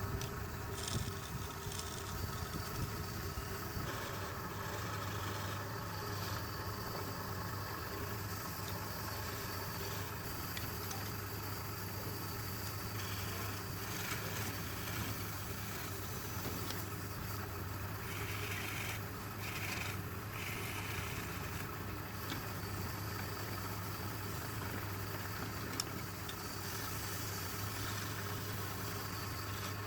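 Electric motor of a woodturning lathe running with a steady hum, with a few brief higher-pitched sounds about two-thirds of the way through.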